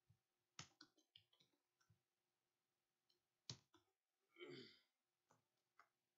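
Faint computer keyboard keystrokes: a quick run of clicks, then single key clicks, with a short breathy rush of noise about four and a half seconds in.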